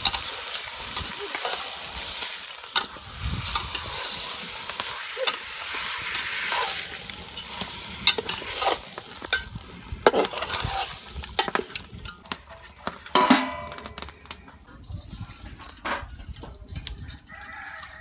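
Chicken pieces frying and sizzling in oil in an aluminium pot, stirred with a metal spatula that scrapes and clicks against the pot. The sizzle is strongest in the first half and dies down in the second.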